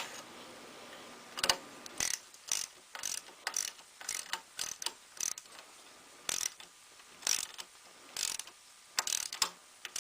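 Ratchet wrench clicking in short bursts, about two a second, as a nut on a bicycle's handlebar is tightened.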